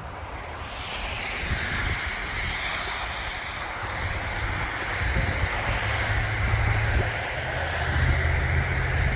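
Steady rushing noise of snowstorm wind and traffic that swells about a second in, with a low engine hum joining from about four seconds in.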